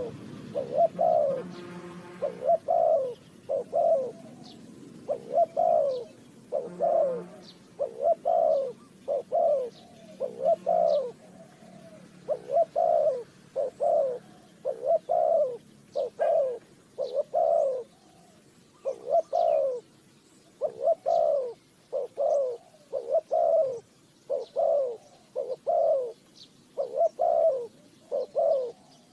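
Spotted dove cooing over and over, a steady run of low coos about one a second, with faint high chirps from small birds behind them.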